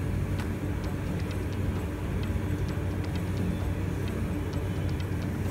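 Steady low mechanical hum with a faint constant tone, and scattered faint light ticks.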